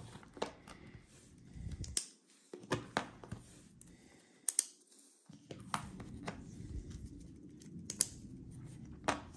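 Irregular sharp clicks and small clatter as ball bearings are pressed by hand into roller holders and the small parts are handled, the loudest click about eight seconds in.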